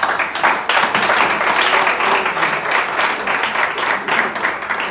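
Audience applauding: dense, loud clapping from many hands that starts to thin near the end.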